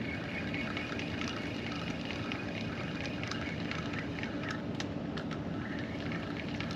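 Small waves lapping and splashing against a rocky shore: a steady wash with many small splashes.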